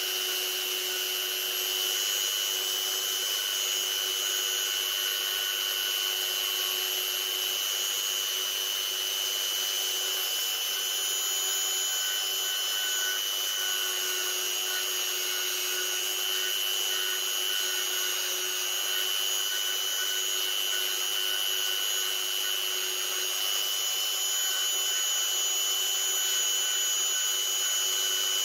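Handheld rotary tool with a small milling bit running at constant high speed, cutting along a traced outline in a wooden board. It gives a steady high whine that does not change in pitch.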